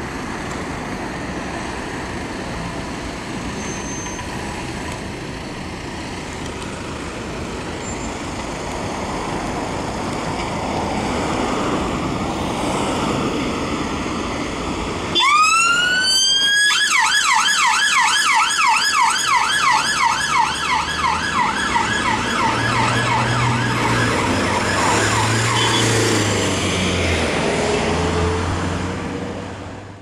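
Road traffic noise, then about halfway through an ambulance siren switches on close by with a single rising wail and goes straight into a fast, repeating yelp.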